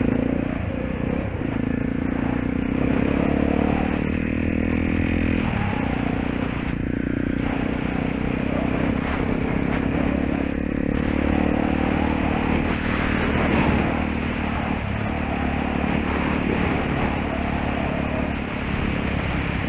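Honda dirt bike's single-cylinder four-stroke engine running while riding, its note dropping and picking up again a few times as the throttle changes, with rattling and rustling from riding over rough grass.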